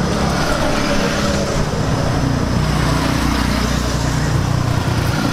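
Road traffic: a motor vehicle's engine running close by over a steady low rumble of street noise.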